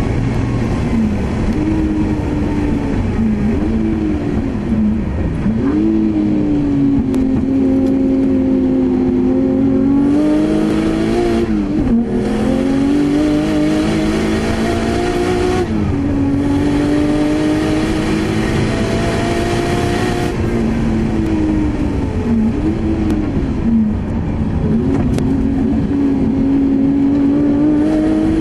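Nissan Skyline R32 GT-R's twin-turbo straight-six driven hard on a race circuit, heard from inside the cabin. The engine note climbs and holds high, with several quick drops and recoveries as the driver shifts and lifts, over steady road and wind noise.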